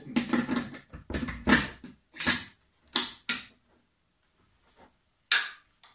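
Metal clacks and short scrapes of a field-stripped Oberland Arms OA-15 AR-15 being handled, its bolt carrier and upper receiver knocking and sliding against each other. There is a quick run of them over the first two and a half seconds, two more around three seconds, and one near the end.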